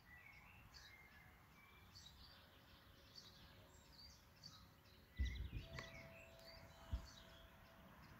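Faint birdsong: many short chirps and calls from small birds throughout. A brief low rumble comes about five seconds in and a short thump near seven seconds.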